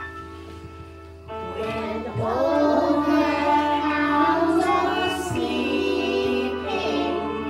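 A harvest song: held chords from the backing music, then children and a woman singing from about a second in, getting louder shortly after.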